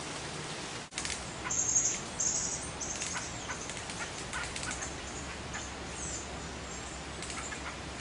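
Small birds giving short, high, thin call notes, most of them between about one and three seconds in, over a steady hiss. The sound dips out briefly about a second in.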